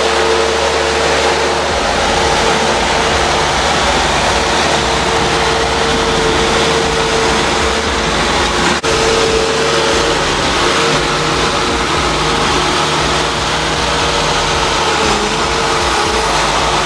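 Bobcat 773 skid steer loader's diesel engine running steadily, with a constant whine over it. The sound dips briefly about nine seconds in.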